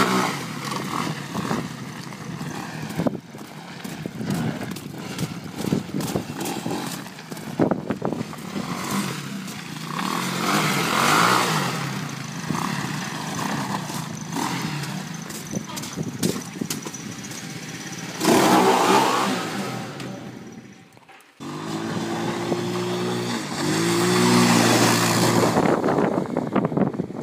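Small ATV engines running and revving as the quad bikes drive past on icy gravel. The sound cuts off sharply about two-thirds of the way through, then an engine with a clear pitch revs twice.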